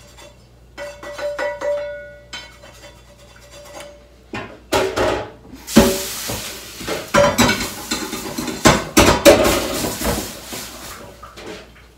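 Faint ringing tones, then from about four seconds in a loud clatter of metal pots and pans being handled, with many sharp knocks and scrapes.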